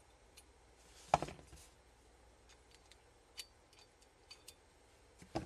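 Small metal ticks and clicks of a pick and tweezers working parts out of a pistol slide, with a louder knock about a second in and another near the end.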